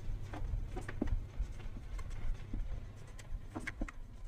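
Marker pen writing on a whiteboard: a quick run of short, faint squeaks and scratches as a word is written stroke by stroke, over a low steady hum.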